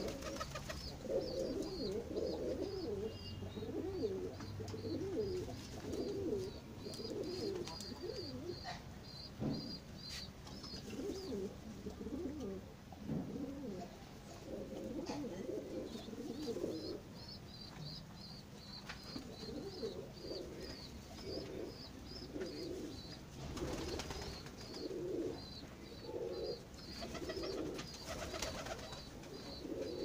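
Domestic pigeons cooing over and over in a crowded flock, low throaty coos overlapping one another. Runs of a fast, thin, high chirping sound behind them, stopping for a few seconds midway.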